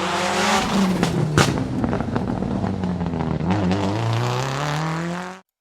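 Race car engine revving, its pitch rising and falling, with a few sharp cracks; it fades in and cuts off abruptly near the end.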